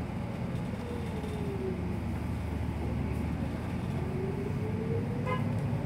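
City bus running, heard from inside the cabin: a steady low rumble with a faint whine that falls in pitch over the first two seconds and rises again in the second half. A short beep sounds about five seconds in.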